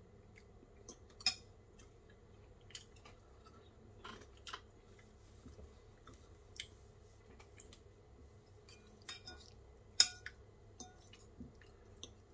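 Scattered light metal clinks and taps of a fork against a ceramic bowl and of a steel chain shifting, the sharpest clink about ten seconds in and another a little over a second in.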